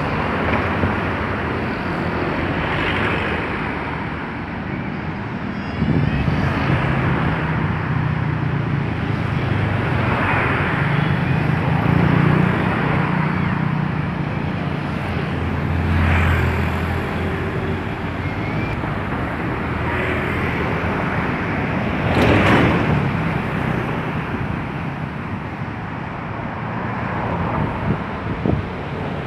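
Steady road traffic, with vehicles passing one after another and swelling and fading every few seconds, and wind buffeting the microphone.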